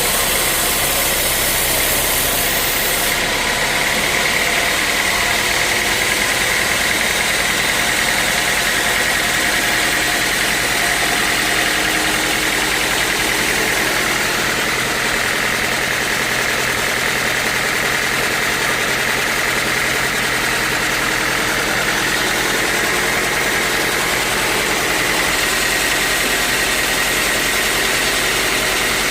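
Sawmill running steadily under power, its engine and saw going without a break, with a constant high whine over the engine noise.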